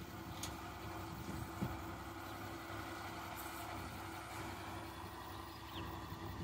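A steady low engine-like drone with faint held tones, running unchanged throughout, with one short knock about a second and a half in.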